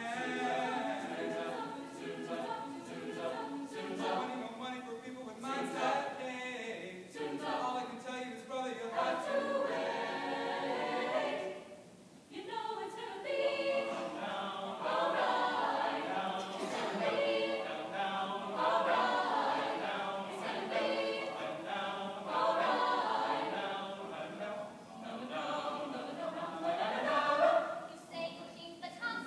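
Chamber choir singing, apparently unaccompanied, with a short break between phrases about twelve seconds in.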